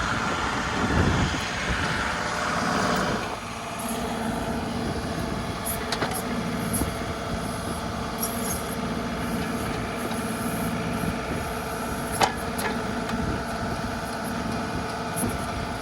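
John Deere 2038R compact tractor's three-cylinder diesel engine running steadily while it powers the 270B backhoe digging at a tree stump. Louder and rougher for the first three seconds or so, then steady, with one sharp knock about twelve seconds in.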